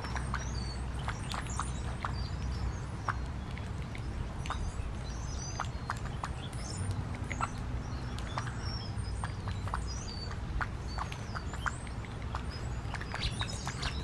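Brown-headed cowbirds pecking seed from a dish feeder: a scatter of light clicks. Short high bird chirps and whistles come and go over a low steady rumble.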